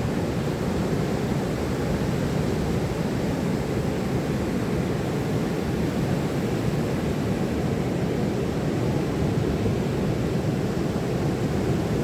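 Ocean surf breaking on a beach, a steady low roar with no distinct wave crashes standing out.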